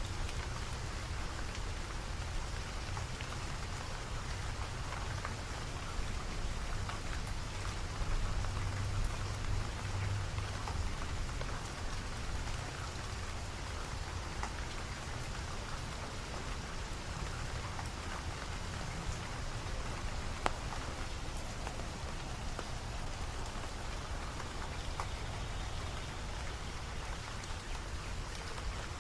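Steady rain falling, with many small drops pattering on surfaces. A low rumble swells for a few seconds about a third of the way in.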